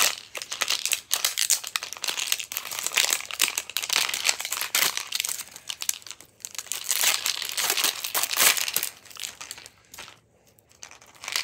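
Printed wrapper on a Mini Brands capsule ball being peeled and torn off by hand, crinkling in quick, dense crackles that thin out about ten seconds in.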